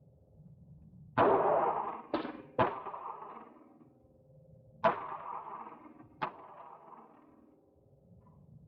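Five gunshots in an indoor shooting range, each followed by echo: three close together about a second in, then two more about a second and a half apart.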